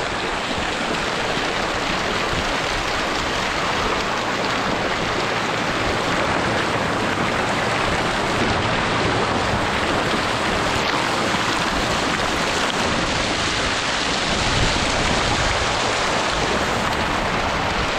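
Jets of spring water arcing from a fountain structure and splashing steadily onto the pool surface, a continuous hissing spatter like heavy rain.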